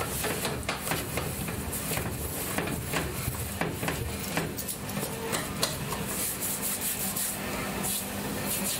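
Hands kneading and pressing a butter-and-flour dough on a tabletop: soft rubbing with irregular light knocks and taps.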